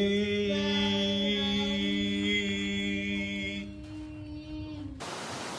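Closing music: a few long, steady held notes like a drone, thinning to a single note and stopping abruptly about five seconds in. An even rushing noise follows.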